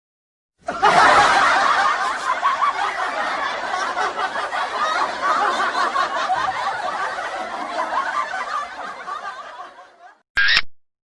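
Crowd laughter sound effect: many people laughing together, loudest at the start and slowly fading away, followed by a brief sharp burst of noise near the end.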